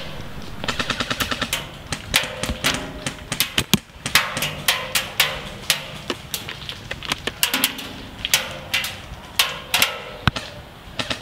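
Airsoft guns firing: fast rattling full-auto bursts of about ten shots a second from electric airsoft rifles, a faint motor whine under some of them, mixed with sharper single snaps.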